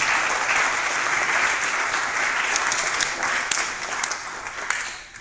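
Congregation applauding: many people clapping steadily, dying away near the end.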